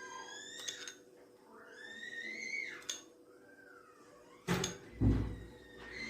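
Kitchenware being handled: two dull knocks about a second and a half before the end, as of a dish or tray being set down. Earlier, faint high tones slide up and then rise and fall.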